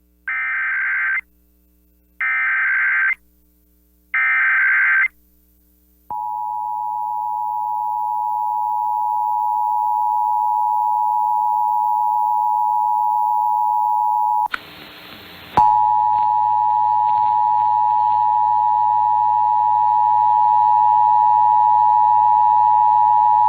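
Emergency Alert System SAME header: three one-second bursts of buzzy digital data, then the EAS two-tone attention signal, a steady loud dual tone, briefly interrupted about 14 seconds in by a second of noise before the tone resumes.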